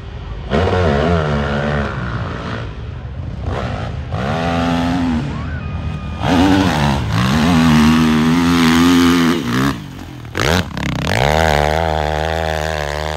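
Four-stroke motorcycle engine revving hard, its pitch climbing and falling several times as the throttle opens and closes, with a few brief breaks in the sound.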